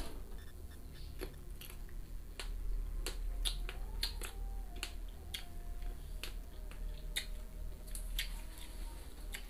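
Close-up chewing of crisp young kedondong (ambarella) fruit: a string of irregular, sharp crunches.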